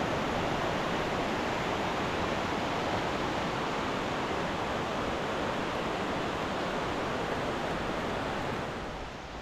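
Steady rushing noise of heavy rain and wind, even and unbroken, easing slightly near the end.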